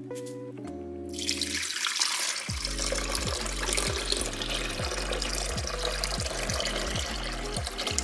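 Water running steadily, like a tap, starting about a second in, over background music with a steady beat.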